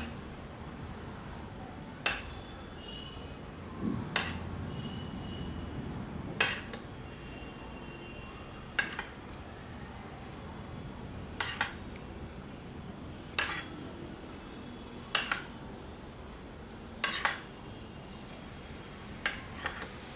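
A utensil clinks sharply against a dish about ten times, roughly every two seconds, while jam syrup is poured over sponge cake pieces. A faint steady hiss runs beneath.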